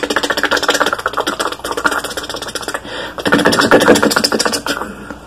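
Low-flying helicopter's rotor chop, a fast even rattle of blade beats that fades away near the end as the helicopter moves off.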